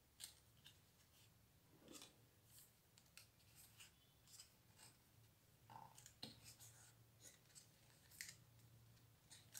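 Faint, scattered clicks and short rustles of a lift-the-flap board book's card flaps and pages being handled.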